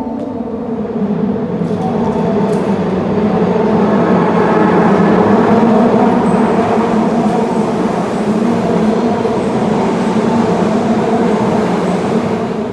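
Osaka Metro Midosuji Line subway train running alongside the platform, a loud rumble that builds over the first few seconds, holds steady, then drops off sharply at the end.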